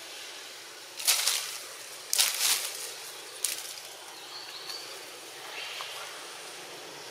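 Outdoor ambience with a steady hiss, broken by three short, loud rustling noises about one, two and three and a half seconds in, and a faint high chirp a little later.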